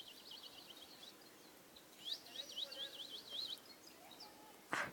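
A small bird singing two quick phrases of rapidly repeated high, chirping notes, the second phrase about two seconds in. A short, loud sharp sound comes near the end.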